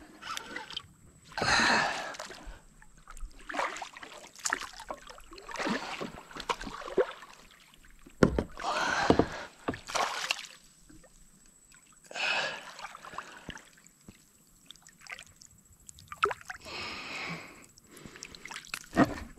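A hooked largemouth bass splashing and thrashing at the water's surface beside a kayak, in several loud bursts, with scattered sharp clicks and knocks between them.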